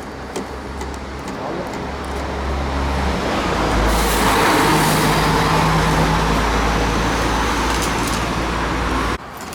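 A motor vehicle's engine running, growing louder about three seconds in and then cutting off abruptly near the end.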